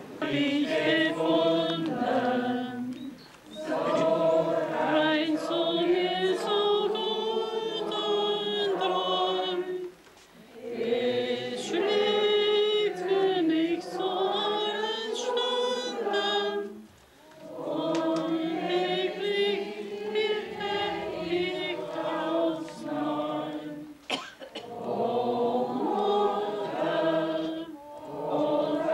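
A congregation of men and women singing a hymn together, largely unaccompanied, in long phrases with short pauses for breath between them.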